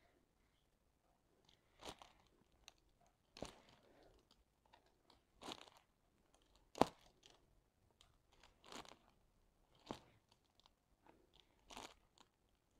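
Diamond painting pen picking up resin drills and pressing them onto the sticky canvas: a series of short, faint ticks, one every second or two.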